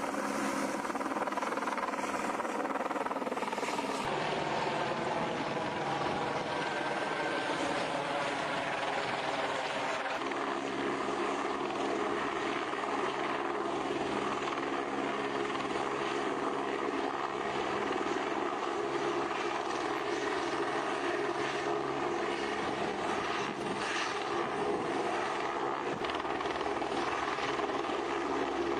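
Helicopter's turbine engine and rotor running steadily while it carries linemen slung on a long line. It makes a continuous drone of several layered tones, and the pitch dips slightly in the first few seconds.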